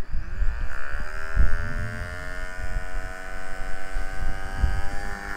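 WLtoys K110 micro RC helicopter's electric motor and rotor spooling up on the ground: a whine that rises in pitch over the first second and a half, then holds steady and high.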